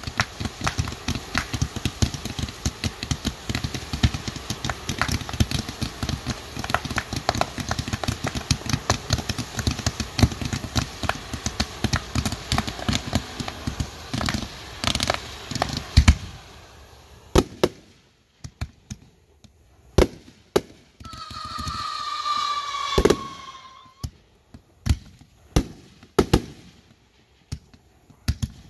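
Firecrackers going off: a dense, rapid crackle of small bangs for about sixteen seconds, then scattered single bangs with short gaps between them. A falling whistle sounds about two-thirds of the way through.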